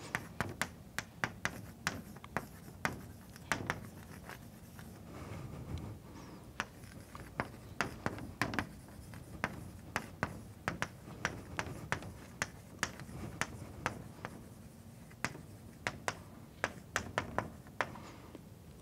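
Chalk tapping and scraping on a blackboard as words are written out by hand: clusters of sharp taps with short pauses between them.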